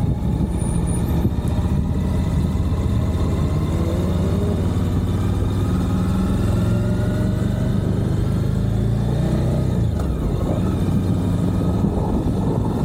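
Suzuki V-Strom 1050XT's V-twin engine running under way, heard from on board; it rises in pitch about four to six seconds in as the bike accelerates, then eases off near ten seconds.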